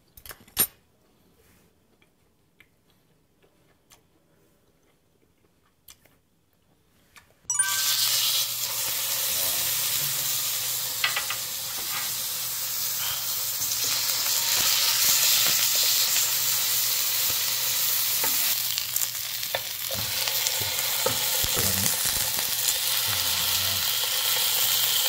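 Hanwoo chateaubriand tenderloin steak searing in hot oil in a frying pan. A loud, steady sizzle cuts in suddenly about seven seconds in, after a quiet stretch with a single click near the start.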